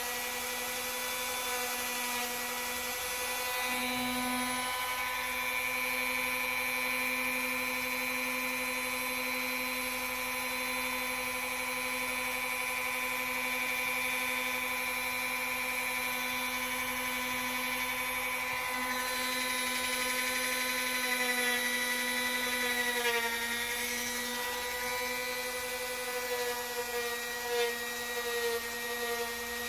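Dremel rotary tool with a felt buffing wheel running at steady speed, a constant high whine, polishing the engagement surfaces of AK-47 trigger parts. Its pitch sags briefly once, about 23 seconds in.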